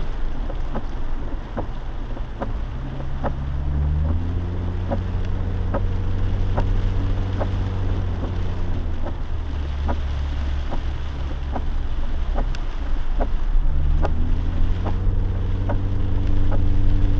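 Lifted Jeep driving on a flooded road, heard from inside the cabin: the engine pulls up through the revs about four seconds in, eases off, and pulls up again near the end, over a steady rush of tyres and water. A regular ticking, about one and a half a second, runs throughout.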